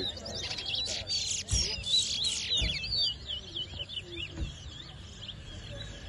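Towa-towa (chestnut-bellied seed finch) singing in a song-count contest: a rapid run of quick, high, up-and-down whistled notes, densest in the first half and thinning toward the end. A few dull low thumps come in between.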